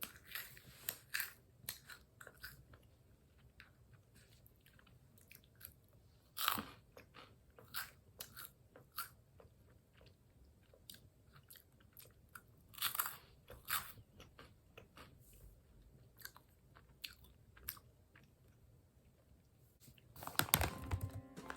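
Close-up chewing and crunching of puffed corn ball snacks, irregular crisp crunches with pauses between bites and a louder flurry near the end.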